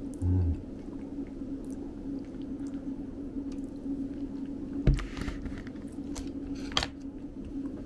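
A person chewing soft zaru tofu eaten with chopsticks from a plastic tub, with small clicks and taps throughout and two sharper knocks about five and seven seconds in. A steady low hum runs underneath.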